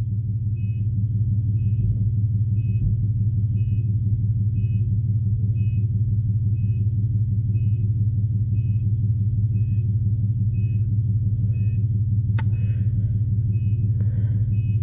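A horn with an electrical fault sounding on and on as a steady, loud low hum, with faint short high beeps repeating about every two-thirds of a second. A single click comes near the end.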